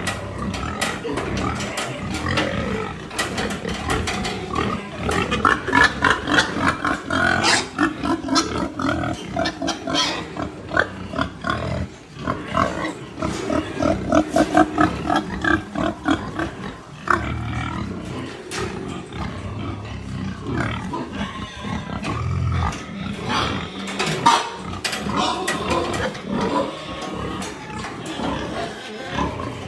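Boar grunting as it moves along sows in stalls, with two long runs of fast rhythmic grunts, about five a second: the courting 'chant' a boar uses when checking sows and gilts for heat.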